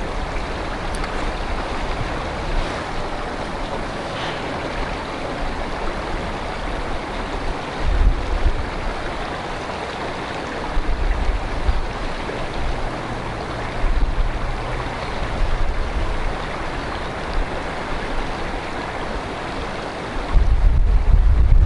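Steady rush of river water and wind, with gusts of wind buffeting the microphone several times and most heavily near the end.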